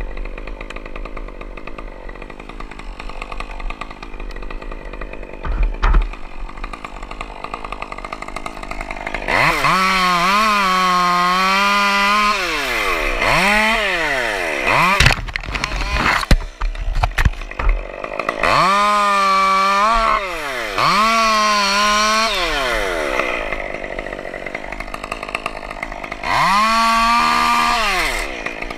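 Chainsaw running at low throttle, then revved hard three times: about 9 seconds in, again about 18 seconds in, and briefly near the end. The pitch sags and recovers as the chain works through the pine wood. A few short knocks are heard between the cuts.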